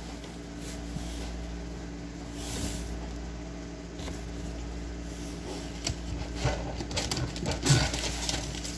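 A crocheted yarn blanket being lifted and handled right against the phone's microphone: irregular brushing, rubbing and knocking, busiest in the last few seconds, over a steady low hum.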